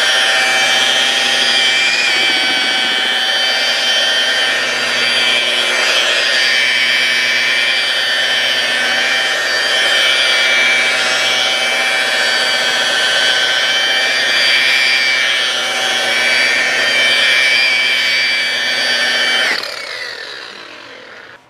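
Low-RPM rotary buffer running steadily with a high whine, polishing a headlight lens with rubbing compound on a foam pad. Near the end it is switched off and its pitch falls as it spins down.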